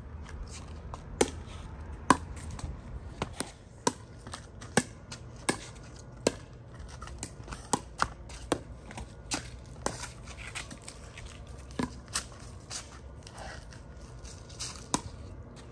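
Pickleball rally: a perforated plastic ball struck back and forth with paddles, a series of sharp hollow clacks about one every second or less, at an uneven pace.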